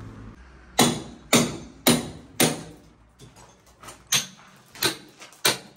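Hammer blows on masonry, a run of sharp strikes about one every half second, stopping for a moment near the middle and then starting again.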